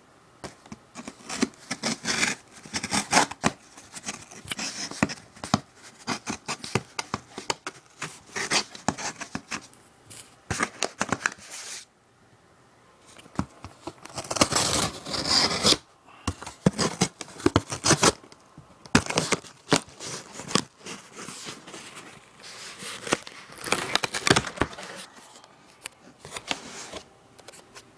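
Packing tape on a cardboard shipping box being slit with a blade and torn open, in irregular bursts of scratching, tearing and scraping. The cardboard flaps rustle and scrape as they are handled.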